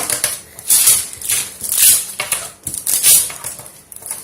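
Butter paper crinkling and rustling in the hands as hard cough candies are peeled off it, in several short swells of crackle.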